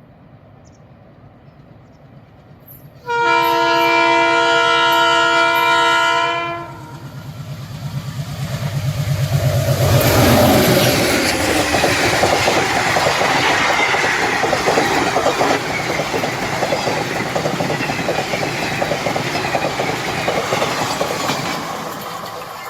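Diesel locomotive approaching with its engine throbbing, then sounding one long, multi-tone horn blast of about three and a half seconds. As it passes, the engine note drops and the train goes by with a steady clatter of wheels over rail joints, easing slowly toward the end.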